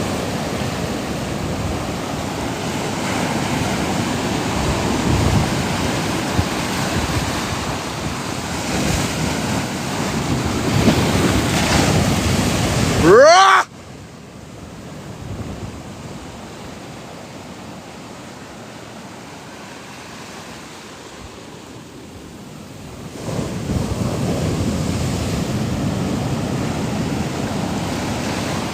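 Ocean surf breaking, with wind buffeting the microphone. About thirteen seconds in, a short rising pitched sweep sounds, then the level drops suddenly to a quieter wash. The surf swells back up about ten seconds later.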